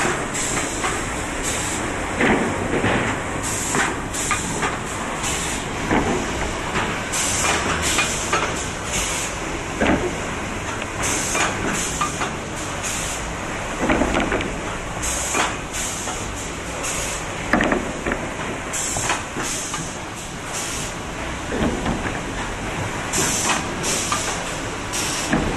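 Wide-belt calibration sanding machine for plywood running, a steady mechanical noise broken by repeated short hisses and knocks every few seconds.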